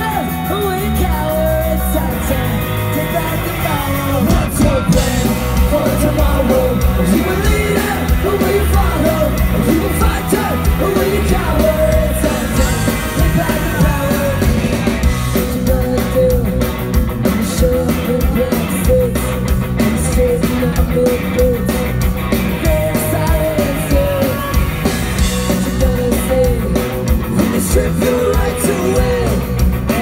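Live ska-punk band, recorded from the audience: a woman sings lead over electric guitar and drums, loud and steady throughout.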